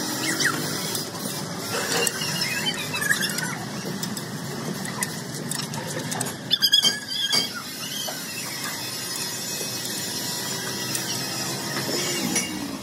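Metalworking noise in a cast-iron valve factory: a continuous squeal with scattered ticks, and a short burst of sharp metallic knocks about six and a half seconds in.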